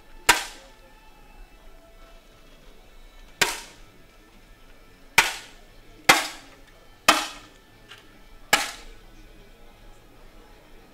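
Six sharp pops from 10 m match air rifles firing in a shooting hall, irregularly spaced, each with a short ringing tail.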